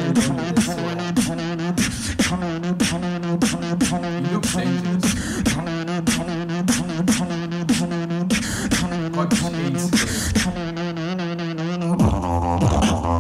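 A beatboxer's solo battle round through a hall PA: a steady rhythm of sharp snare and hi-hat clicks over a held, hummed bass line. About twelve seconds in, the bass drops to a lower, heavier tone.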